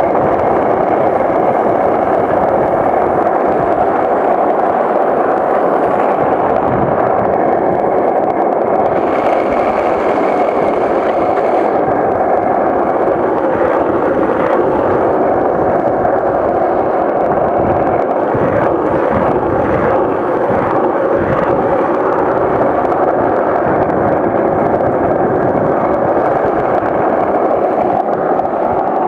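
Steady rushing roar of skateboard wheels rolling fast on asphalt, mixed with wind buffeting the microphone as the rider films while bombing downhill.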